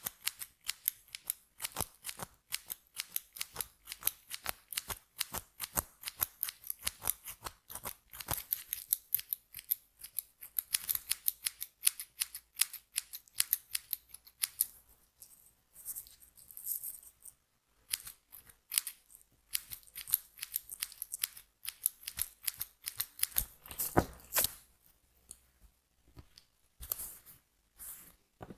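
Hair-cutting scissors snipping through hair in quick runs of cuts, several snips a second, with a few brief pauses.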